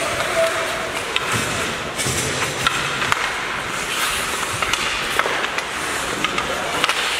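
Ice hockey play: skates scraping on the ice and scattered sharp clacks of sticks and puck, over a steady rink din.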